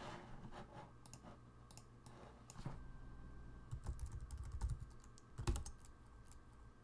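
Faint, irregular keystrokes typed on a computer keyboard, with a few louder, duller strikes in the second half.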